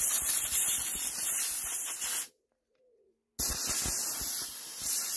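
Compressed air hissing from an airline blow gun in two long blasts, blowing dust and grass out of a lawnmower engine. The first blast cuts off sharply about two seconds in, and the second starts a second later.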